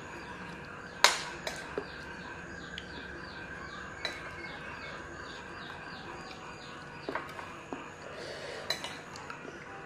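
Metal spoon clinking and scraping against ceramic dinner plates during a meal: a handful of sharp clinks, the loudest about a second in. A quick series of faint, high, repeated chirps runs behind them through the middle.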